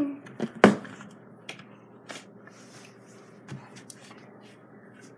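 A few scattered sharp clicks and light taps of a plastic fork and dishes being handled at a table, the loudest about half a second in, over quiet room tone.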